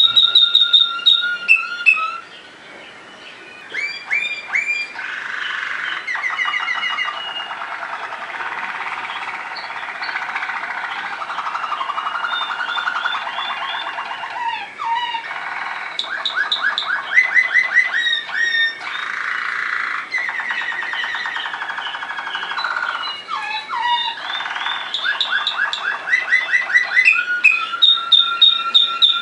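Waterslager song canary singing continuously: long runs of rapid trills and rolls alternating with held whistled notes, with a short break about two seconds in before the song resumes.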